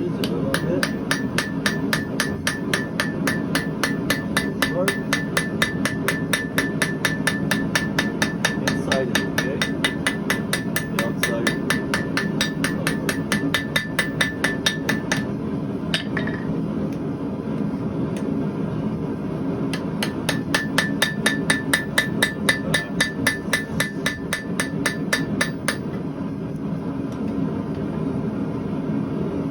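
Blacksmith's hammer striking hot steel on an anvil in fast, even blows, about three to four a second, with a ringing note from the anvil. Two long runs of blows with a pause between and a single blow in it, over a steady low hum.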